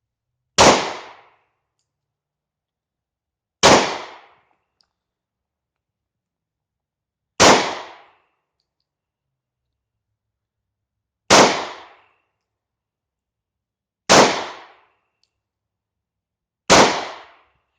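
Six single shots from a 9mm German P.08 Luger pistol, fired slowly one after another, each a sharp crack that fades over about half a second, with gaps of three to four seconds between them.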